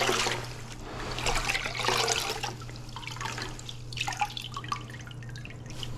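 Water splashing and dribbling in a few irregular bursts as a grout sponge is dipped and squeezed out in a bucket of water.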